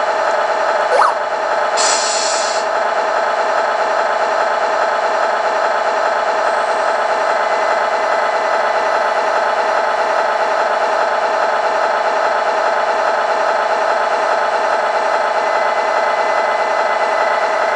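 Diesel semi-truck engine sound idling steadily with an even rhythmic beat. About a second in there is a brief rising siren whoop, then a short burst of hiss like an air-brake release.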